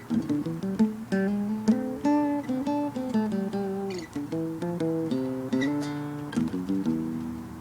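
Guitar music: plucked notes and chords, with the notes changing every half second or so.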